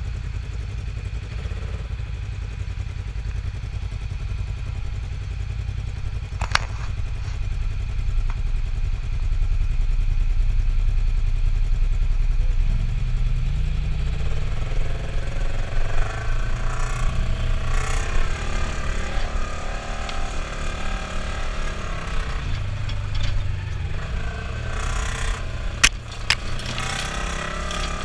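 Polaris RZR side-by-side's engine running under way, revving up and down through the second half, with a sharp knock about six seconds in and another near the end.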